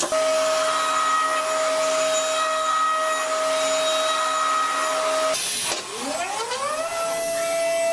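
Electric motor of a machine running with a steady whine. About five seconds in it stops with a brief hiss, then spins back up with a rising whine and settles at a slightly higher pitch.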